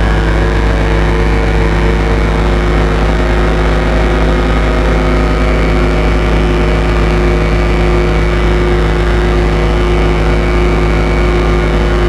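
Dark drone from a Colossus Audio "The Hum" drone instrument: a heavy low rumble with several steady held tones layered above it, unchanging in level, with reverb added.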